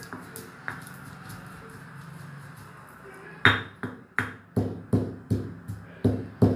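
Stone pestle working coarse peanut chutney in a small stone mortar: first quiet grinding and rubbing, then, about three and a half seconds in, steady pounding at two to three strokes a second.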